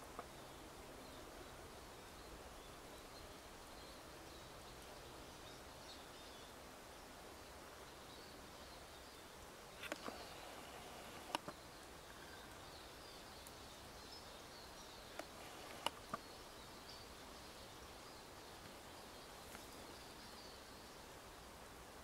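Faint, high twittering of small finches over a low background hiss, with a few sharp clicks around the middle.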